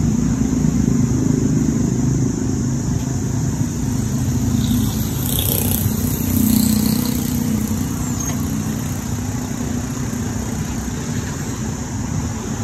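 Street traffic: motorbike and car engines running steadily, swelling to their loudest about six to seven seconds in.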